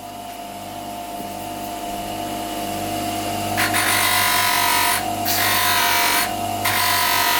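Small Parkside electric polisher running with a cotton buffing wheel, its motor tone slowly growing louder. From about halfway in, the wheel is worked against an aluminium fork leg with polishing paste, adding a loud rushing scrub that breaks off briefly twice as the wheel is lifted and moved.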